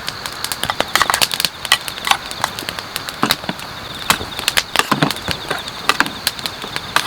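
Irregular sharp clicks and light knocks, busiest about a second in, over a steady high chirring of crickets.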